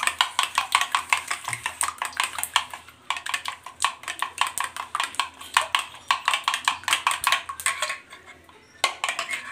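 Eggs being beaten fast with a steel spoon in a bowl, the spoon clicking against the bowl about five times a second. It pauses about eight seconds in, then goes briefly again.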